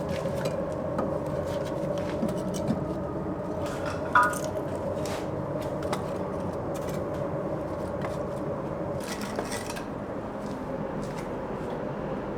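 Kitchen work noise: metal utensils and cookware clicking and scraping over a steady machine hum, with one sharp metal clink about four seconds in.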